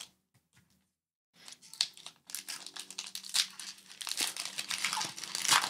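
A foil Pokémon booster pack wrapper crinkling and tearing as it is opened by hand, in a dense crackle that starts about a second and a half in, after a brief near-silent pause.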